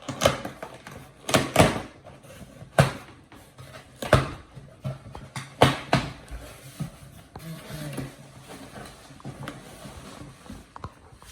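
Packaging being torn open by hand: about six sharp rips and crackles in the first six seconds, then quieter rustling and handling of the box.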